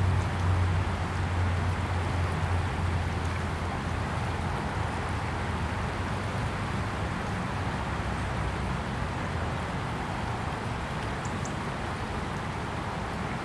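River water flowing in a steady rush over a shallow, rippled bed, under a low rumble that is loudest in the first few seconds and then fades.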